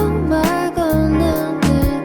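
Background pop song: a sung melody over bass and a steady beat.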